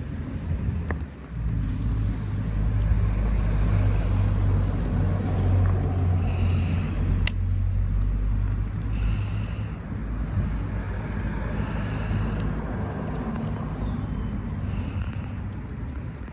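Low, steady engine rumble of a motor vehicle. It comes up about a second in and eases off after about ten seconds, with a single sharp click about seven seconds in.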